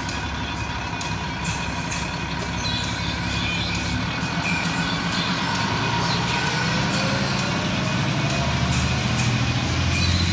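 Fire engine's diesel engine running as the truck drives past close by, its low rumble growing louder from about halfway through.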